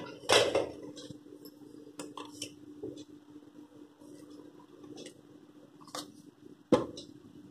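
Metal kitchen utensils being handled and set down, clinking and knocking: one sharp knock about half a second in, another near the end, and small clicks between, over a steady low hum.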